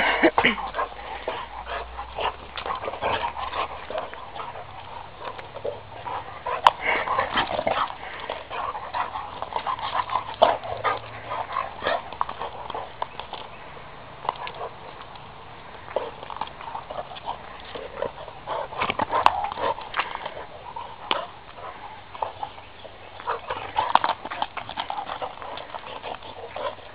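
Redbone Coonhound playing with a rubber ball on asphalt: irregular taps, scuffs and clicks of claws and ball on the pavement, going on throughout.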